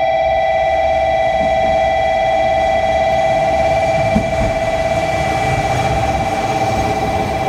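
KiHa 47 diesel railcar pulling slowly into the platform and rolling past, its low running rumble growing from about four seconds in, with one clunk. A loud steady high-pitched tone sounds throughout.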